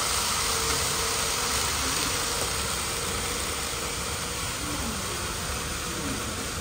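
Steady background noise of a busy shop: an even hiss with a faint steady hum, no distinct event standing out.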